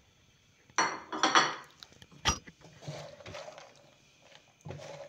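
Silicone spatula stirring almonds, walnuts and cashews roasting in ghee in a nonstick pan: the nuts rattle and scrape against the pan in short spurts, with one sharp knock a little over two seconds in.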